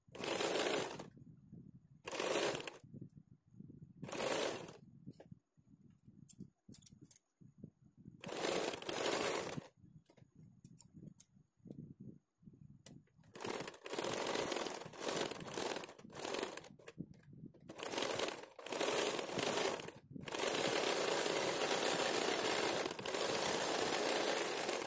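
Electric domestic sewing machine stitching lace trim onto fabric. It runs in short bursts of about a second at first, then in longer runs from about halfway, the longest about five seconds near the end. There are faint handling sounds in the pauses.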